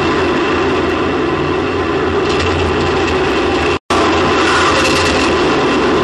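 Onboard microphone on a Space Shuttle solid rocket booster tumbling back down through the atmosphere after separation: a loud, steady rushing rumble of air over the booster. It cuts out completely for an instant about four seconds in.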